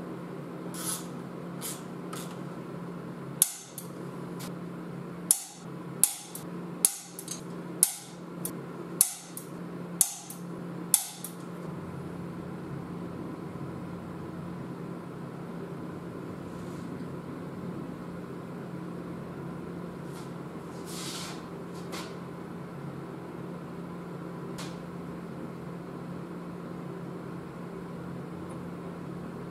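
A run of sharp metal hammer taps on a steel driver held against an NP231 transfer case, about a dozen strikes at a quickening pace, the hardest coming roughly once a second, then stopping about eleven seconds in. A steady low hum runs underneath.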